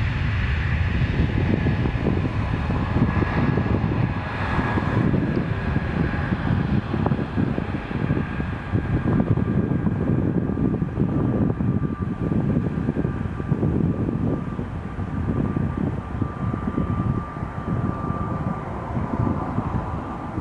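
Jet airliner engines at takeoff thrust: a loud, low rumble with a rapid crackle and a high fan whine, which settles into one steady tone partway through.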